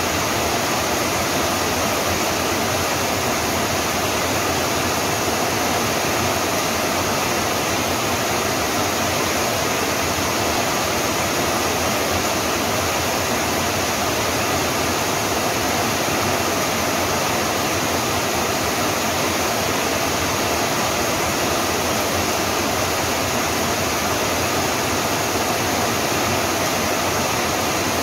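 Steady rain, an even, unbroken hiss with no separate drops or other events standing out.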